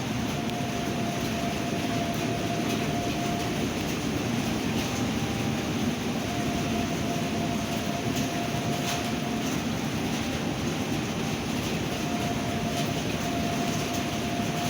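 Steady storm noise of rain and wind, with a faint, steady, unidentified tone that comes and goes three times, each lasting two to three seconds, about six seconds apart.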